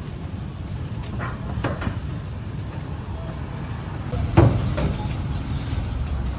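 Steady low rumble of street background noise. Over it come a few sharp clicks and one louder knock about four seconds in, as bamboo skewers of squid are turned on a metal charcoal-grill grate.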